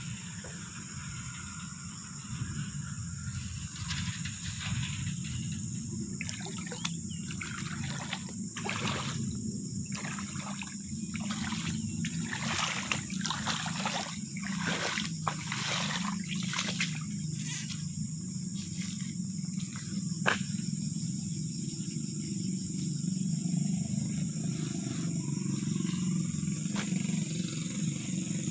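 Floodwater rushing in a steady roar, with a run of short crackling splashes from about six to seventeen seconds in.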